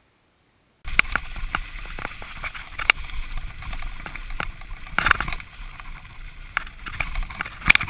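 A mountain bike ridden down a rough, muddy trail, heard from a camera mounted on its handlebars: constant rattling and sharp knocks from the bike over bumps, over tyre noise and a low wind rumble. It starts abruptly about a second in, and the loudest knocks come about five seconds in and near the end.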